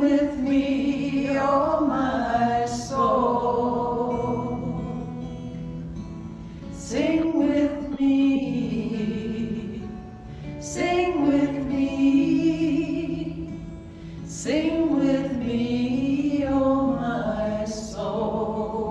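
Women singing a slow song in unison to a strummed acoustic guitar, in long sung phrases with held notes that begin every few seconds.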